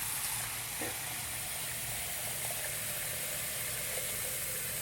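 Water tap running steadily into a sink, filling it.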